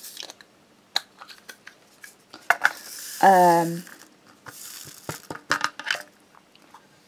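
Light clicks and taps of a diamond-painting drill pen and resin drills on a plastic tray, with short bursts of rattling as the drills are shaken in the tray.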